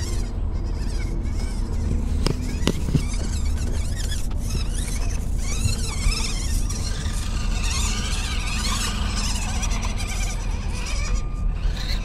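Axial SCX24 micro RC crawler's small electric motor and gears whining, the pitch wavering up and down constantly as it crawls, with a few sharp clicks about two to three seconds in.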